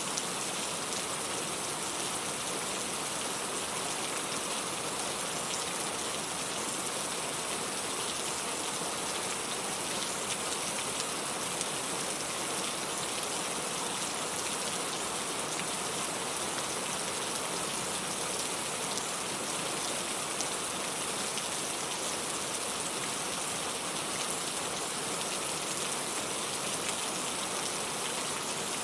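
Steady rainfall: an even, unbroken hiss with faint scattered drop ticks.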